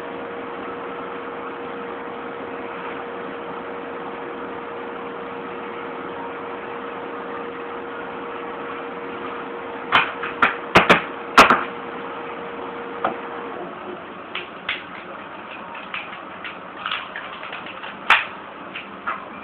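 Paper money and papers being handled at a desk: a run of sharp clicks and knocks, loudest in a cluster about halfway through, with scattered taps after. Underneath, a steady electrical hum with a faint tone stops about two-thirds of the way in.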